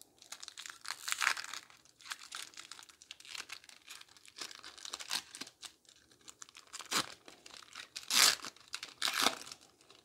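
Foil trading-card booster pack wrapper crinkling and tearing as it is opened by hand, with the loudest rips twice near the end, about a second apart.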